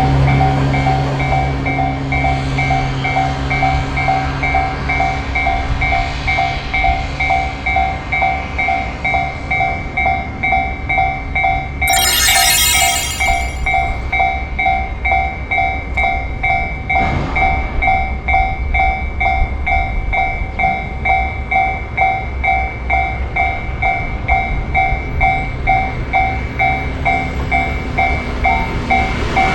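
Japanese railroad crossing's electronic warning bell ringing steadily in a repeating ding, over the low rumble of a passing train. A brief shrill whistle-like sound cuts in about twelve seconds in.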